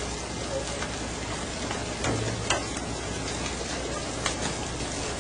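Steady hiss of rough, foaming sea water and wind against a fishing boat, with a few short sharp sounds, one about halfway through and another near the end, as fish are hauled aboard.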